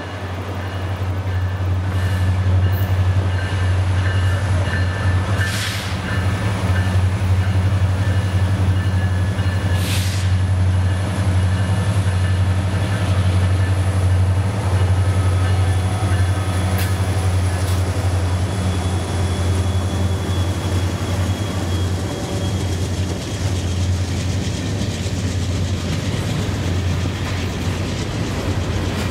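Diesel freight locomotives, a BNSF unit leading, passing at about 15 mph with a steady low engine drone that is loudest as they go by, followed by the freight cars rolling past on the rails.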